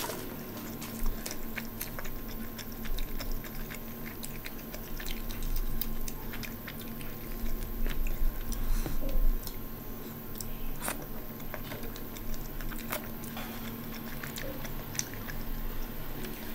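Close-miked chewing and wet mouth noises of someone eating with their hands, a run of small clicks and smacks. About halfway through, soft butter naan is torn by hand, the busiest stretch. A faint steady hum sits underneath.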